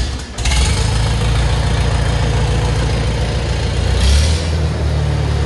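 Farmall 230 tractor's four-cylinder engine running steadily, briefly louder about four seconds in.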